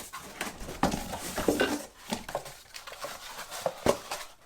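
Irregular light clattering and knocks of hard parts being handled, like metal pieces of a mitre saw stand knocking together.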